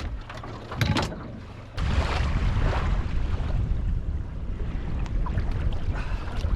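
Wind buffeting the microphone: a loud, steady rush that starts abruptly about two seconds in, after a few short knocks.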